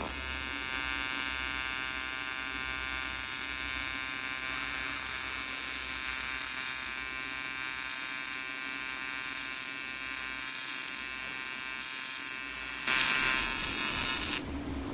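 AC TIG welding arc on aluminum square tube, a steady buzz, with the weld running a little dirty. About 13 seconds in the arc grows louder and harsher for a second and a half, then drops back.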